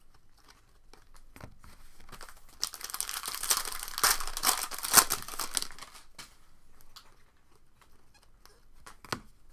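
Wrapper of a Panini Prizm baseball card pack crinkling as it is torn open and crumpled, a dense crackle lasting about three seconds in the middle. A few light taps come before and after it.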